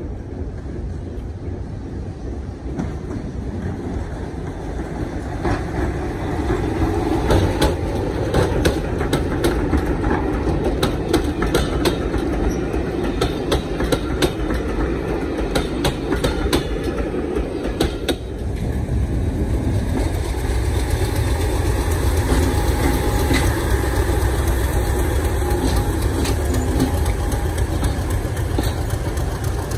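Diesel-hauled passenger train passing close by. The coach wheels click over the rail joints for much of the first half, then a steady, heavy engine rumble takes over as Class 50 diesel locomotive 50021 and its English Electric V16 engine come past.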